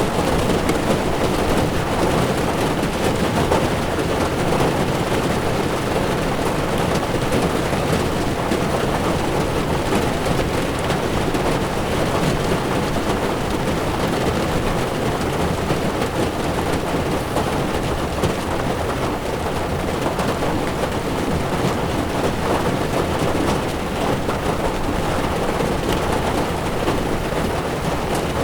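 Heavy rain falling on a moving car's windshield, with tyres running on a wet road; a steady, dense noise with no breaks.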